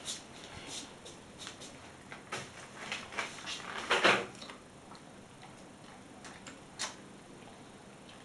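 Chinese Shar Pei chewing at a snack in a plastic bag, the bag crinkling under its mouth and paws: scattered small crackles and clicks, busiest in the first half, with the loudest about four seconds in.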